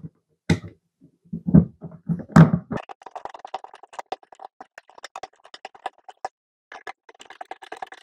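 Duplex receptacle pushed into a plastic electrical box with a few knocks, then its mounting screws driven in with a hand screwdriver: a fast run of small clicks from about three seconds in, pausing briefly and starting again near the end as the second screw is turned.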